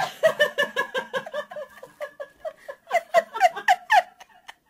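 People laughing: quick ha-ha-ha pulses at about five a second, with a second burst of laughter about three seconds in.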